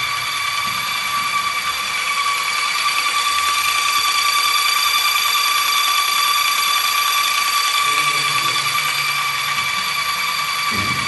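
Polyurethane injection pump running steadily, giving a constant whining tone with overtones that does not change in pitch.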